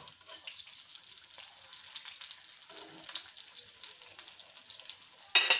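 Potato-and-chicken snacks shallow-frying in hot oil in a pan: a steady, fine crackling sizzle, with a brief louder rush of noise near the end.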